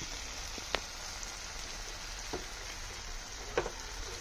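Tengra fish and sponge gourd bhuna sizzling steadily in a frying pan, nearly done in its thickened gravy, with a few faint clicks.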